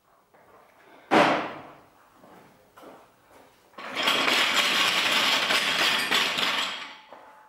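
A single loud, sharp clank that rings off briefly, then about four seconds in a steady hiss that runs for about three seconds and stops.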